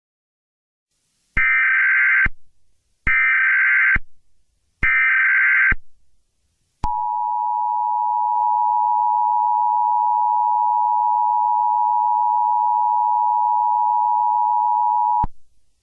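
Emergency Alert System tones: three identical bursts of warbling digital header data, about a second each, then the two-tone EAS attention signal held steady for about eight seconds before cutting off.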